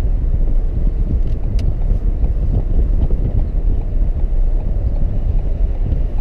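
Steady low rumble of a car driving: road noise and wind buffeting the microphone. A faint tick about one and a half seconds in.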